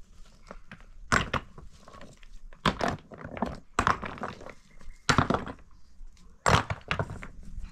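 A series of irregular knocks and clatters, roughly one a second, each short and sharp.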